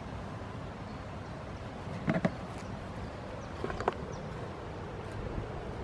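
Young goats butting heads: short sharp knocks of head against head, a quick cluster of two or three about two seconds in and another pair near four seconds, over a steady outdoor hiss.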